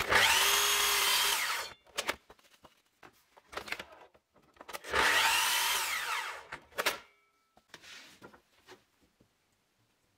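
Festool sliding mitre saw run twice, about three seconds apart, each run about two seconds long with a whine that sweeps in pitch as the blade spins up and cuts a thin wooden strip. Handling clicks and knocks from the saw and clamp come between the runs and after them.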